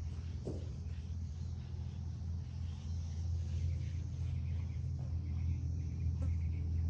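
A steady low rumble, with faint insect chirping coming in about halfway through.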